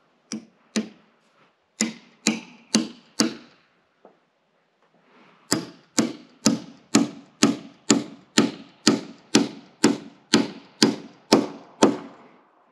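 Framing hammer driving a nail through a wooden purlin into the truss. Two light taps set the nail and four blows follow; after a pause comes an even run of about fourteen blows, about two a second.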